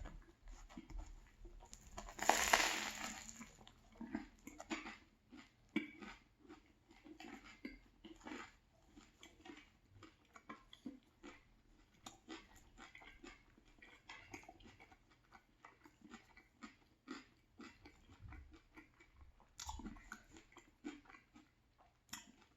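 Biting into a crusty banh mi baguette about two seconds in, the loudest sound, then close-miked chewing with many small crunches of the bread crust.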